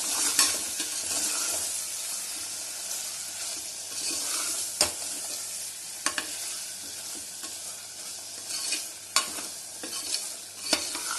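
Minced mutton (keema) with onion, tomato and spices sizzling as it is sautéed and stirred in a pressure cooker, with a few sharp knocks of the stirring spoon against the pot.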